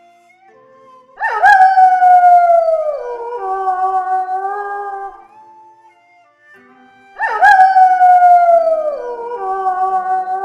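A pack of wolves howling in chorus. A loud howl starts suddenly about a second in, rises briefly and then slides slowly down in pitch, while other wolves hold lower, steadier notes. The same howl comes again about seven seconds in.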